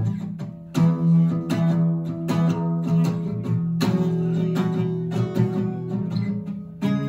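Strummed guitar chords playing an instrumental passage of a live song, one strum stroke about every three-quarters of a second.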